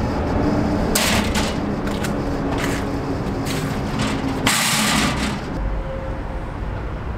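Steady low drone of city traffic, with a few short hissing bursts, the longest about four and a half seconds in.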